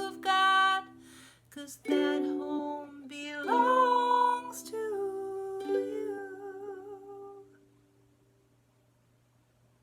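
Ukulele closing out a song with strummed and picked chords under a wordless vocal line. The last chord rings and fades out about seven to eight seconds in, leaving a faint low hum.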